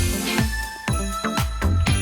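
Background music: an upbeat track with a drum beat about every half second and sustained, ringing high tones.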